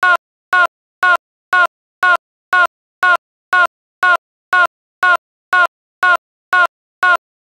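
A short pitched blip repeats in an exact loop about twice a second, each one identical and cut off sharply with dead silence between: a stuck, looped audio fragment rather than a live sound.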